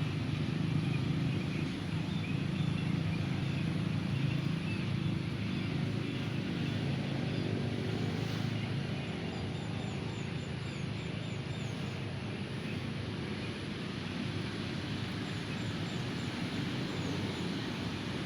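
Steady low rumble of road traffic and vehicle engines, with faint high bird chirps about halfway through and again near the end.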